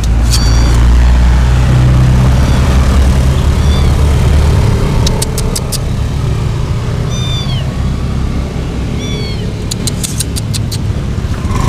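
Stray cats meowing several times, short calls that rise and fall in pitch. A low rumble runs under the first half, and a few quick sharp clicks come around the middle and again near the end.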